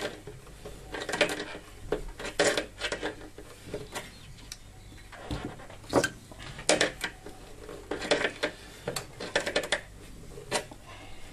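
Steel pliers and a small steel security screw being handled on a tabletop: a run of short, irregular metallic clicks and knocks, some in quick clusters.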